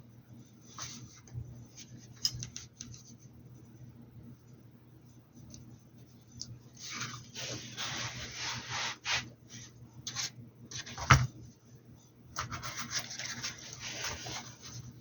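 Paintbrush scrubbing on the hat's fabric in quick back-and-forth strokes, in two busy spells, with one sharp tap a little past the middle.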